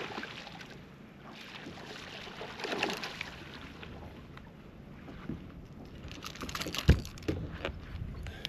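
Wind and water noise around a small fishing boat, swelling a few times, with one sharp, heavy thump about seven seconds in followed by a few lighter knocks.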